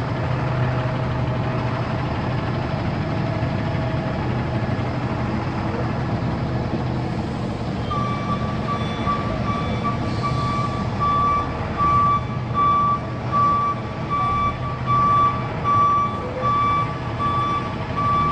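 Forklift engine running steadily; about halfway through its reversing alarm starts, a high beep repeating a little faster than once a second as the machine backs up.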